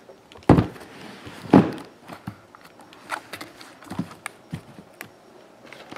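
Sealed, shrink-wrapped trading-card hobby boxes being set down and stacked on a table: two heavy thuds about half a second and a second and a half in, then a few lighter knocks and taps as the boxes are shuffled into place.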